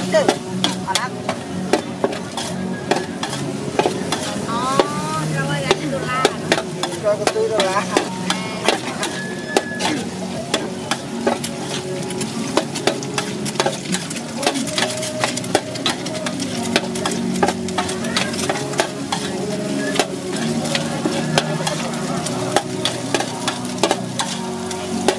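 Noodles and vegetables sizzling in a large wok while a metal spatula scrapes and clacks against the pan in quick, irregular strokes.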